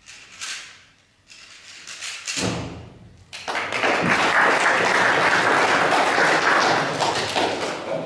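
A single thud about two and a half seconds in, then an audience applauding for about four seconds, fading near the end.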